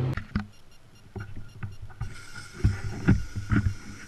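Irregular knocks and clunks from handling a propane lawn-and-garden torch and its long metal wand. A faint steady high tone comes in about halfway through.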